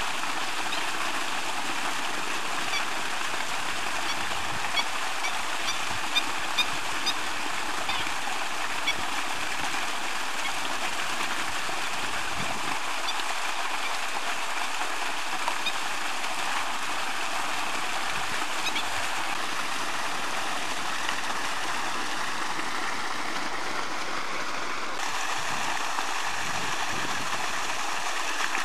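A steady rushing hiss, like flowing water, throughout, with a handful of short, high calls from waterbirds on the pond between about four and seven seconds in.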